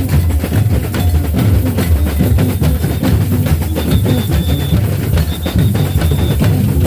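Batucada samba drum ensemble playing a dense rhythm led by heavy bass drums. A high whistle sounds twice in the second half, each blast held about a second.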